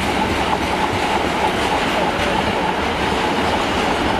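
Freight train's covered wagons rolling along the track, a steady loud clatter of wheels on rails.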